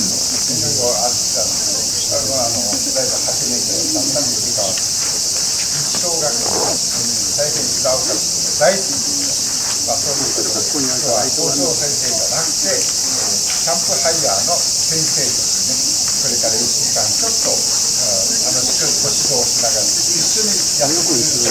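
A steady, high-pitched insect chorus drones without a break, with faint, indistinct voices of adults and children talking beneath it.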